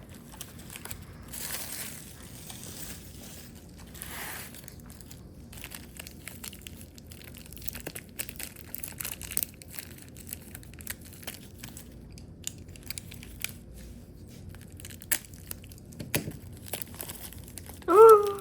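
Packaging being unwrapped by hand: soft crinkling and tearing, with scattered small clicks and taps. A short voiced exclamation comes near the end.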